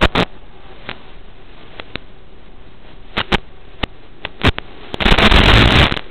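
Scattered sharp clicks and pops over a faint steady hiss, then a loud burst of crackling static lasting about a second near the end. This is analog FPV video-link interference heard in the recorded audio.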